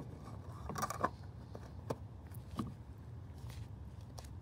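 Faint clicks and light knocks of a 3D-printed ABS puck being pressed into a Fisker Ocean's plastic jack point, a small cluster about a second in and a couple of single ones after.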